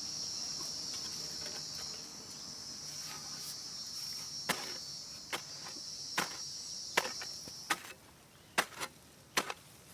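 A steady, high-pitched insect chorus that cuts off near the end. In the second half come about eight sharp, short clicks, some in quick pairs, which are the loudest sounds.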